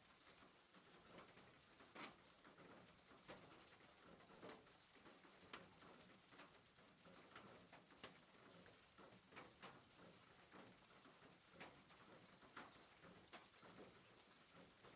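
Near silence, with faint irregular clicks and taps.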